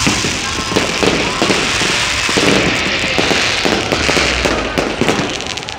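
Aerial fireworks bursting overhead in a dense, continuous run of bangs and crackling.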